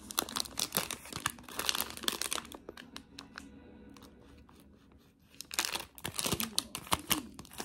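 Thin plastic food wrapping crinkling as a packaged dango snack is handled, in two bouts with a quieter stretch in the middle.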